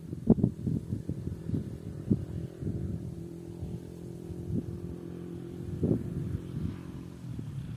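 Wind blowing over the microphone in low, irregular buffets, strongest at the start and again about six seconds in, over a faint steady hum.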